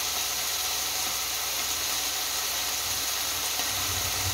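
Beef cubes and sliced vegetables sizzling in oil in a stainless steel frying pan over high heat, a steady hiss.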